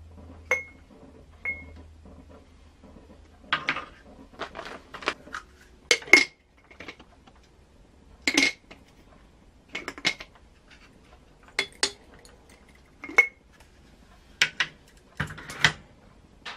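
Glass parts of a siphon coffee maker clinking and knocking as they are handled: about a dozen sharp taps and clinks at irregular intervals, several with a brief glassy ring.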